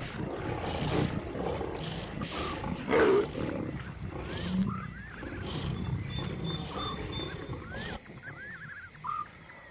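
Lions growling and snarling as they feed together on a hippo carcass, the sound of competition over the kill; one louder growl comes about three seconds in. Faint, short high chirps repeat in the background, and the growling dies down about eight seconds in.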